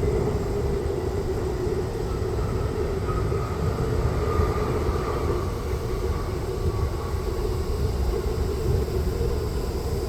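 Jet airliner engines running, a steady rumble with a faint high whine that wavers slightly in pitch.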